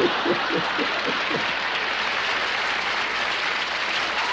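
Studio audience applauding at a joke's punchline, a steady wash of clapping. Over the first second or so a man chuckles.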